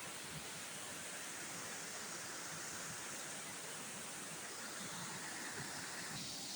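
Steady rush of flowing stream water, an even hiss with no distinct events.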